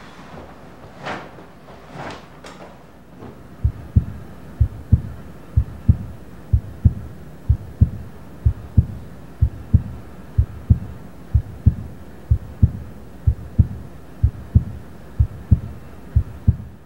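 Heartbeat sound effect: low double thumps, lub-dub, about one beat a second, starting a few seconds in and running on evenly. Before it come two brief rustles of a jacket being taken off.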